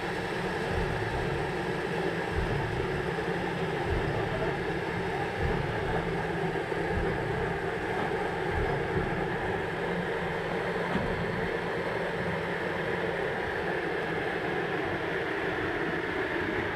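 Steady rushing hiss at a narrow-gauge K-36 steam locomotive standing at a water tank while its tender is filled from the spout, with uneven low thumps underneath.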